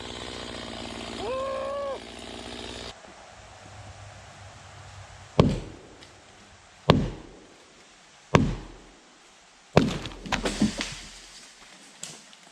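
A motor runs steadily and cuts off abruptly about three seconds in. Then come four heavy thunking blows, about a second and a half apart, and a quick run of smaller knocks: hand striking during work on a tree that will not fall.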